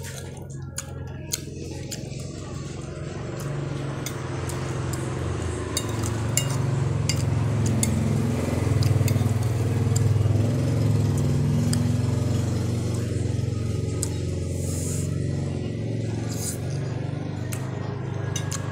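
A low, steady engine-like hum that builds over the first several seconds and then holds, with scattered light clinks.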